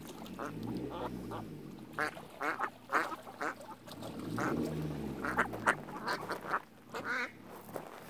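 Ducks quacking in several quick runs of short calls. A low hum swells and fades underneath.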